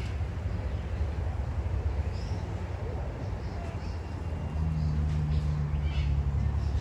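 Outdoor ambience: a steady low rumble, joined about two-thirds of the way in by a low steady hum, with a few faint bird chirps above.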